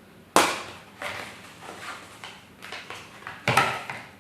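Lens box packaging being handled and unpacked: a sharp knock about half a second in and another near the end, with rustling and lighter taps of cardboard and packing between.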